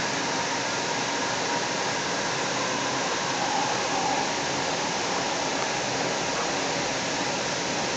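Steady rushing noise of a light rail car running at speed, heard from inside the car: wheels on the rails and the car's running noise, with a faint steady tone.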